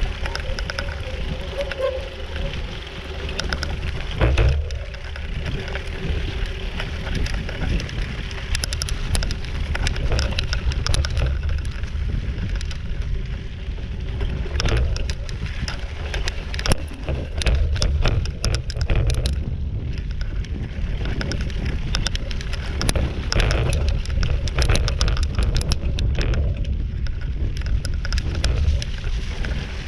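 Bicycle rattling and clattering as it rides down a rough dirt trail, with many sharp knocks from the bumps over a constant low rumble.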